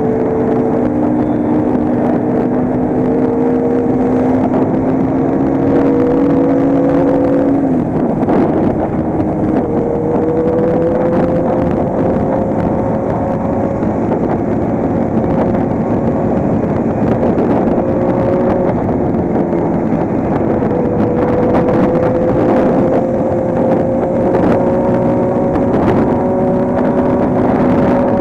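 Motorcycle engine running at highway cruising speed under a steady rush of wind, its note creeping slowly higher as it pulls; the engine tone drops out briefly about eight seconds in and again around nineteen seconds before picking back up.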